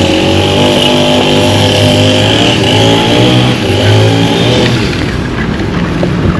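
A motor vehicle's engine running close by, its pitch rising and falling, with a high whine over it; it fades away about five seconds in.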